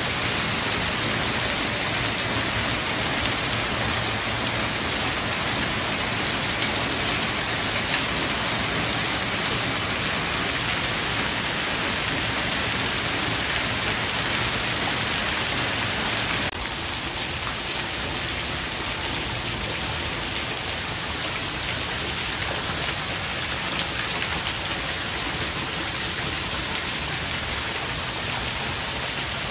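Hail mixed with heavy rain pelting lawn, pavement and shrubs: a dense, steady hiss made of countless small impacts. A little past halfway the sound thins in the low end and turns brighter.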